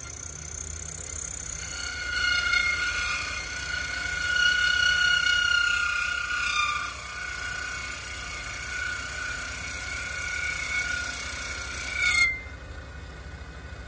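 Small end mill in a G. Boley watchmaker's milling machine cutting brass: a steady high whine with several tones that rise and fall slightly over the low hum of the running spindle. The high whine cuts off suddenly about twelve seconds in, leaving only the quieter running hum.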